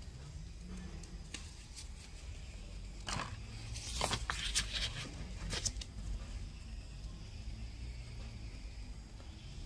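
A sheet of paper being handled and laid down: a cluster of short rustles and scrapes in the middle, over a low steady hum.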